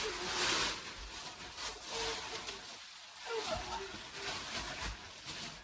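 Plastic mattress wrapping rustling and crinkling in irregular bursts as it is pulled off the mattress, loudest in the first second, with a few brief vocal sounds in between.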